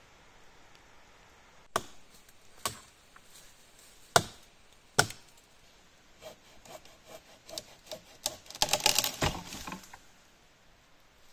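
Wood being struck: four sharp, separate knocks about a second apart, then a run of lighter clicks and a short dense clatter of wood on wood.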